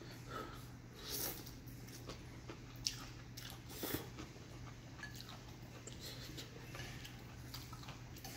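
A man chewing a mouthful of noodle soup, with soft wet mouth sounds throughout. About three and four seconds in, there are two sharp clicks, likely the metal fork knocking against the glass bowl.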